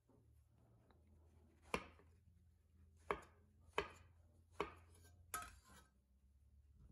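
Chef's knife slicing a button mushroom on an end-grain wooden cutting board: five sharp knocks of the blade striking the board, roughly a second apart, the last one longer and noisier.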